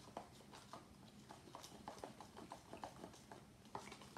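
Spoon stirring a drink in a small clear plastic cup: faint, quick, uneven clicks as it knocks against the cup.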